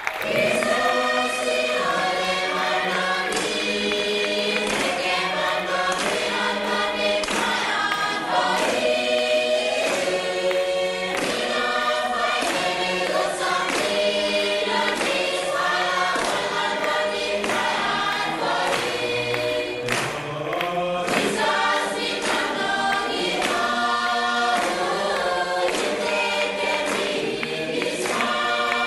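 Music: a choir singing over instrumental backing with percussive accents, continuous and full.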